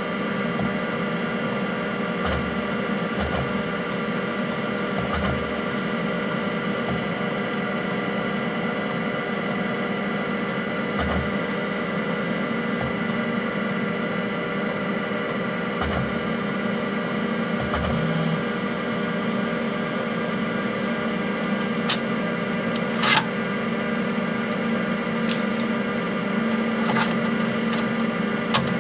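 IBM PC AT (5170) running: a steady hum and whine from its power-supply fan and spinning Seagate ST-4038 MFM hard disk, with short low thumps every few seconds as the drive heads seek while files copy from floppy disk to the hard disk. A few sharp clicks come in the last several seconds, one louder than the rest.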